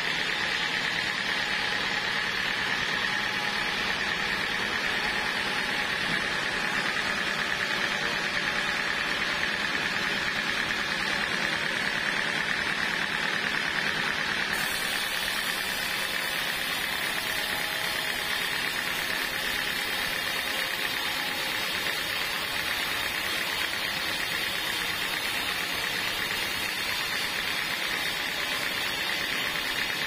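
Band sawmill blade cutting lengthwise through a teak block: a steady hiss of sawing with a high, even whine.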